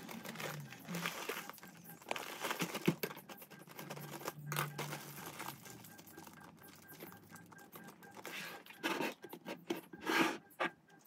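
Rice grains pouring from a plastic bag into a large glass jar, then the plastic bag crinkling as it is handled, with a few sharper knocks near the end as a lid is pressed onto the jar.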